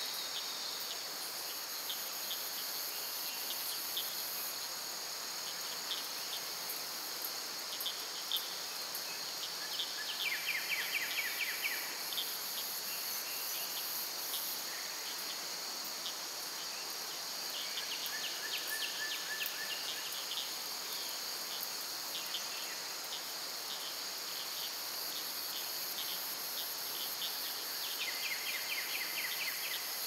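Insects chorusing in a steady high-pitched drone, joined now and then by short runs of rapid pulsing trills.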